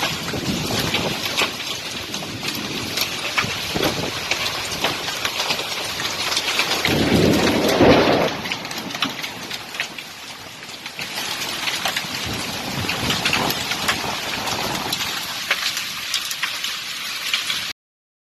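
Hailstorm: hailstones and rain pelting down in a dense, continuous clatter of sharp impacts. A deeper rumble swells briefly about seven to eight seconds in. The sound cuts off suddenly near the end.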